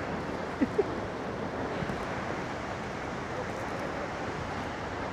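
Steady rushing roar of Skógafoss waterfall, mixed with wind buffeting the microphone. Two short sharp sounds come just under a second in.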